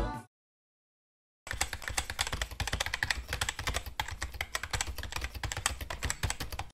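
Keyboard typing sound effect: a fast, dense run of key clicks that starts about a second and a half in, after a moment of silence, and stops just before the end, timed to a title being typed out letter by letter.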